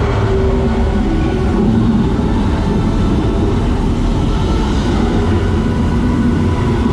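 Steady low rumble of a water-ride boat travelling along its flume channel.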